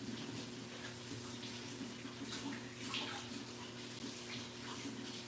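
Water running from a tap into a kitchen sink while dishes are washed, with a few short clinks of dishware.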